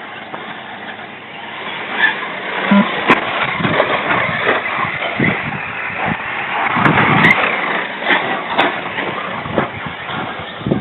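Remote-control cars racing on a dirt track: a continuous rumble of motors and tyres, with sharp clicks and clatter, louder through the middle.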